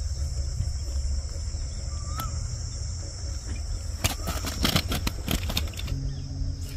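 Steady high-pitched chorus of crickets. About four seconds in comes a quick run of splashes and clicks from a mesh keep net being worked in the water.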